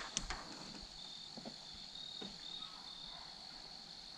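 Faint chorus of crickets: a steady high-pitched trill with short chirps repeating over it. A few small clicks in the first second.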